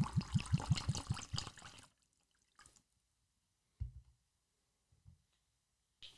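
Liquor pouring from a glass bottle into a plastic cup in quick glugs, stopping about two seconds in. A soft thump follows near four seconds in.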